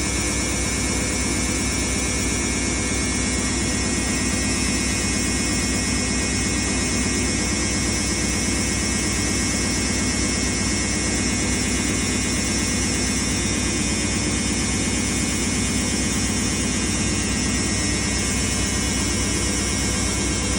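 Washing machine running with a steady, unbroken whir and hum, its level unchanging throughout.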